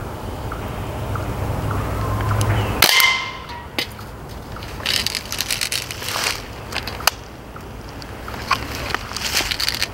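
CO2-powered Umarex Steel Strike BB rifle firing: sharp pops, the loudest about three seconds in followed by a brief metallic ring, then more scattered shots, some in quick clusters.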